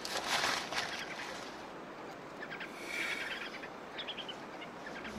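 Outdoor night ambience: a steady soft hiss with a few short high chirps in quick clusters around the middle and near the end.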